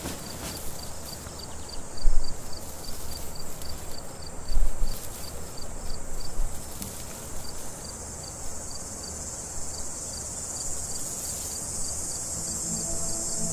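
Crickets chirping in an even pulse, about four chirps a second, over a steady high insect hiss. Two dull low thumps stand out in the first half.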